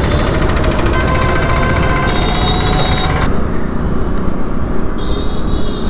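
Wind and road noise from a moving motorcycle in town traffic, with a thin high whine briefly about two seconds in. The sound changes abruptly a little past three seconds in, at a cut to another stretch of road.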